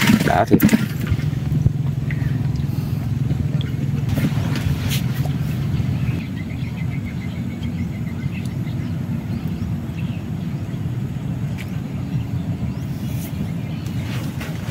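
A steady low engine drone, a motor running at an even speed, with a few faint clicks.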